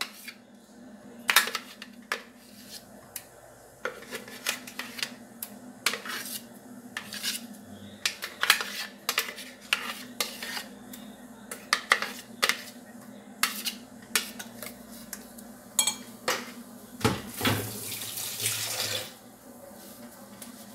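A spoon repeatedly knocking and scraping against a blender jar and a glass bowl, sharp separate clinks and taps, as thick blended rice paste is scraped out of the jar. Near the end a rushing noise lasts about two seconds.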